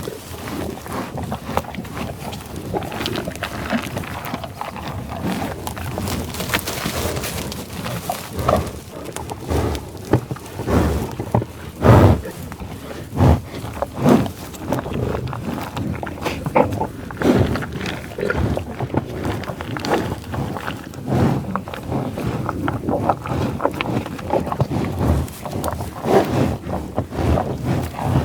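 Buffalo giving a series of short grunts and bellows at irregular intervals, the loudest about halfway through.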